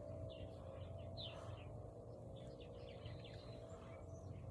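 Faint outdoor ambience with small birds chirping: scattered short, high chirps, thickest in the second half, over a steady low background hum.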